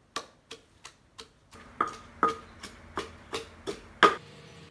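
Wooden pestle pounding curry paste in a clay mortar: a steady run of dull strikes, about three a second, the loudest one near the end.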